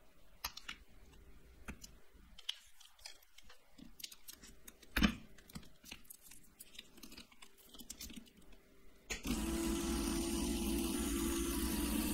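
Lego Technic parts clicked and knocked together by hand, with one louder knock about five seconds in. About nine seconds in, the Lego electric motor and gear train switch on and run steadily with a hum, spinning the sandpaper-wrapped rollers of the pencil sharpener.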